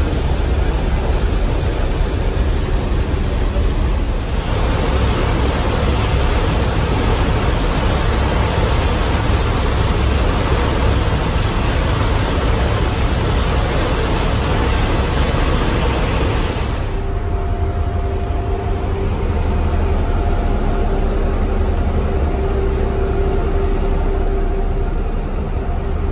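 Passenger ferry under way: a steady low engine rumble with wind and water hiss on the open deck. About seventeen seconds in the hiss drops away, leaving the engine's steady hum with a couple of held humming tones, as heard from inside the vessel.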